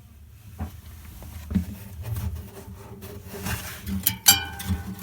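Knocks, clicks and rattles of refrigerator panels and parts being handled, getting busier toward the end, with a few sharp ringing clicks about four seconds in, over a steady low hum.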